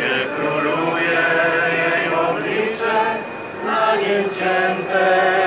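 A crowd singing a church hymn together, many voices holding long notes.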